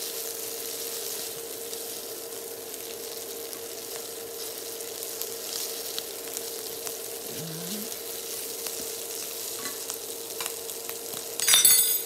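Shrimp, tofu and bacon sizzling in a nonstick frying pan while being stirred with wooden chopsticks, with small taps of the chopsticks on the pan over a steady hum. A brief loud clink comes near the end.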